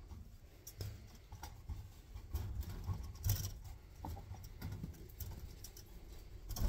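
Rex rabbits moving about on a wire cage floor, their feet tapping and scrabbling in irregular clicks and small rattles of the wire.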